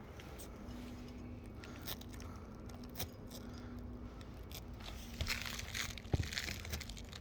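Brittle asphalt roof shingles crackling and scraping as they are handled and pried at, with scattered small clicks and one sharp knock about six seconds in.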